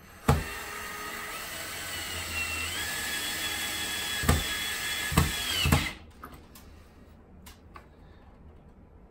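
Ryobi cordless drill running at the top of a window frame for about six seconds: a sharp knock as it starts, a steady motor whine that rises in pitch partway through, a few more knocks near the end, then it stops.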